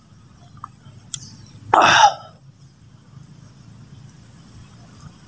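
A man slurping hot coffee from a mug: one short, loud slurp about two seconds in, with a couple of faint clicks before it.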